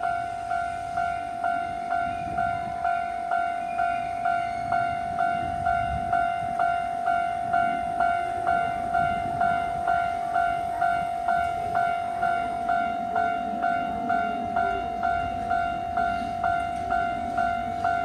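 Japanese railway level crossing warning bell ringing on and on, one clear ding repeating just under twice a second, sounding while the barriers are down for approaching trains. A low rumble sits underneath and swells a little about two-thirds of the way through.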